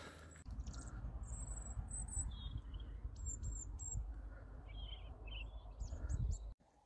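A small songbird chirping: a string of short, high, thin notes, some falling in pitch. Underneath is a steady low rumble, the loudest part of the sound, which cuts off suddenly near the end.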